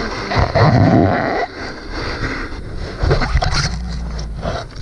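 Shallow sea water sloshing and churning around an action camera held at the waterline, a loud muffled rush that is strongest in the first second and a half, with a steady low rumble later on.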